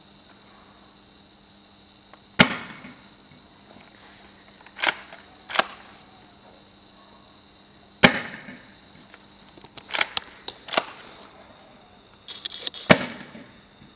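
Spring-powered airsoft pump shotgun, a Swiss Arms Shotgun MS, fired three times. Each shot is a sharp crack. After the first two shots the pump is racked back and forward, two quick clacks that re-cock the spring for the next shot.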